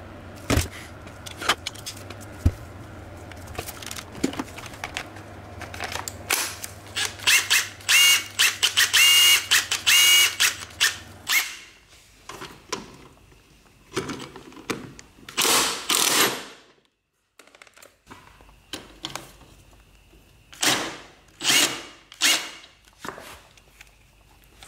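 Makita DTW281 cordless impact wrench, freshly fitted with a new rotor, run on a scooter's axle nut. It hammers with a steady motor whine for about five seconds, then gives about five shorter trigger bursts. A few handling clicks come before the first run.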